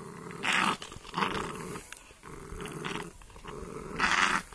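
Pitbull puppy growling low and continuously, broken by three short rasping noises, the loudest about four seconds in.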